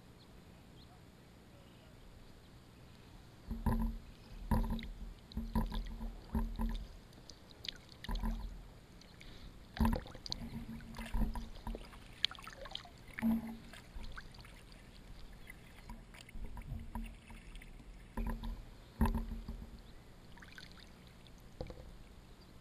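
Kayak paddle strokes on an inflatable Advanced Elements AdvancedFrame kayak: the blades dipping and splashing, with sharp knocks at the hull, in an uneven series of roughly one stroke a second. The strokes start about three and a half seconds in and thin out after about nineteen seconds.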